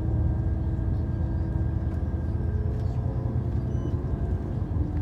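Steady low rumble of a moving vehicle heard from inside, with a few faint steady hums over it.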